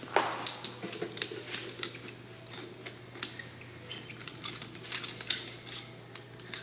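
Irregular clicks, clinks and knocks of fire hose couplings and hose being handled in a metal bumper hose tray while a female coupling is hooked onto a male end, with the sharpest knock just after the start.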